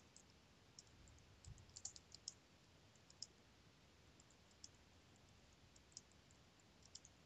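Faint, irregular clicks of typing on a computer keyboard, a short run about two seconds in and single keystrokes after.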